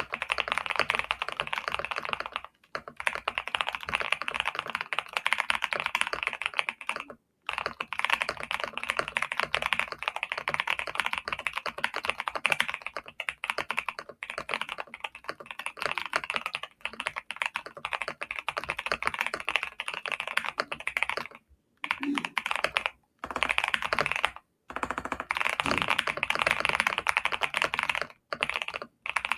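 Fast, continuous typing on a GMK67 mechanical keyboard with factory-lubed Vertex V1 switches and Cherry Ember keycaps. It is broken several times by short pauses of under a second.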